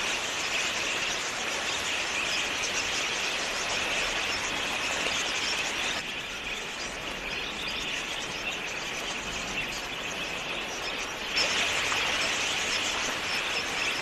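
A huge flock of budgerigars chattering, a dense continuous mass of high chirps and squeaks from many birds at once. The chatter thins abruptly about six seconds in and swells back just after eleven seconds.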